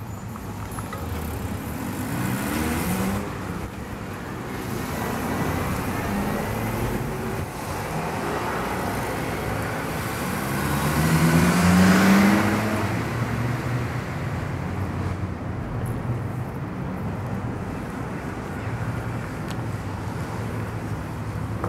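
Street traffic: cars driving through an intersection, engines running and tyres on the road. Several pull away with a rising engine note. The loudest passes close about halfway through, speeding up as it goes by.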